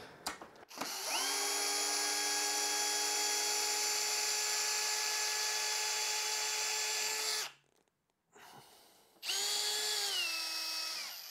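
Hilti SFE 2-A12 12-volt cordless drill driver driving a wood screw into a beam. The motor whine rises quickly and holds steady for about six seconds, then stops. A shorter second run follows, and its pitch drops near the end.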